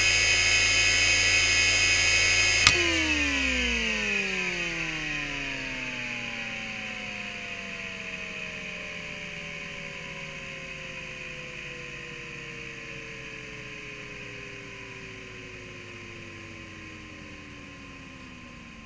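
Fujitsu M2903SGM 5400 rpm SCSI hard drive with seven platters idling with a steady whine, then a sharp click a little under three seconds in. The drive then spins down, its whining tones gliding slowly downward in pitch and fading.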